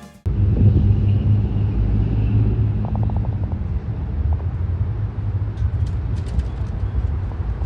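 Jet engines of a Boeing 777-200 airliner passing overhead, a steady low rumble that cuts in abruptly a moment in.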